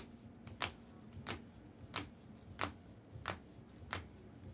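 Steady ticking: evenly spaced sharp clicks, about three every two seconds.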